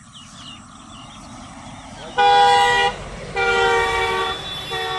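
A vehicle horn sounds three times, two longer blasts and then a third running on at the end, each a steady two-note chord over a low rumble.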